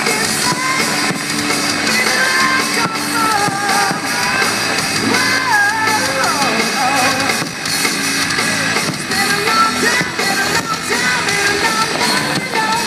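Rock song with singing, guitar and drums, played loud as a fireworks show's soundtrack.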